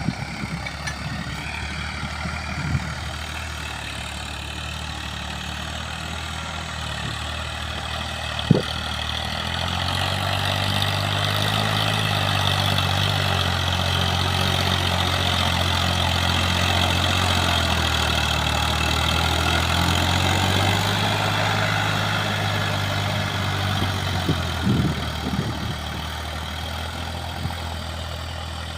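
Tractor engine running steadily, getting louder and a little higher in pitch for about twelve seconds in the middle as it takes more load, then settling back.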